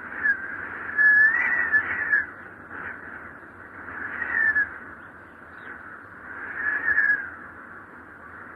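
Wind whistling in strong gusts: a steady airy rush with a thin high whistle that swells and fades three times, bending up and down in pitch.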